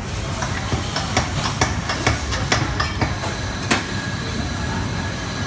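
A steady low workshop rumble. Over it come a dozen or so irregular light clicks and knocks as a wound hub motor stator and its wiring are handled on a bench, the clicks falling within the first four seconds.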